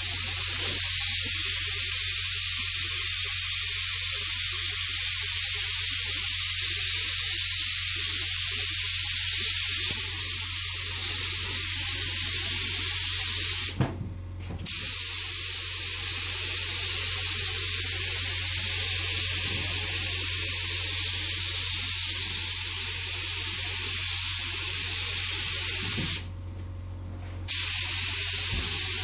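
Steady hiss of paint being sprayed, cutting off briefly twice: once about halfway through and once near the end.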